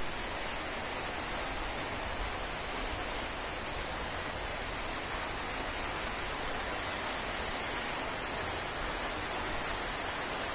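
Steady rainfall, an even hiss with no breaks.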